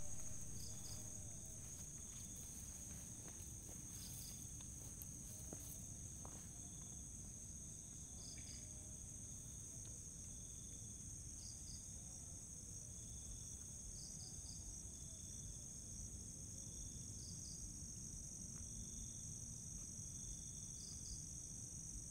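Crickets and other insects chirping: a steady high-pitched trill with short double chirps repeating every couple of seconds, over a low hiss from the recording.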